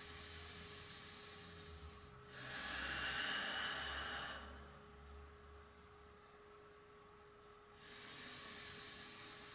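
A person breathing audibly in long, slow breaths during a yoga breath-control exercise (uddiyana bandha), with the strongest breath about two seconds in and another near the end. A faint steady hum runs underneath.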